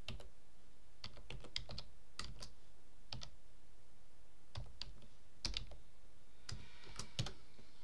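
Computer keyboard typing slowly and unevenly: single keystrokes and short runs of a few keys, with pauses of about a second between them.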